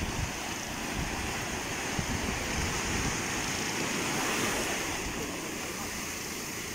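Sea surf washing steadily on the shore, with wind buffeting the microphone.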